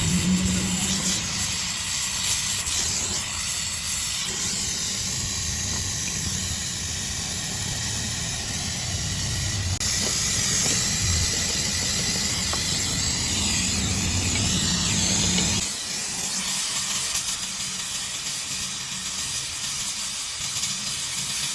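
Steady loud hissing rush with a low rumble underneath; about two-thirds of the way through the rumble cuts out suddenly and the hiss goes on.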